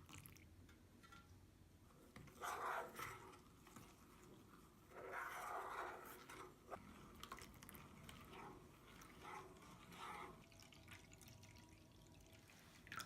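Faint liquid sounds of water in a bowl: two louder splashing, pouring patches, then a few smaller drips and splashes.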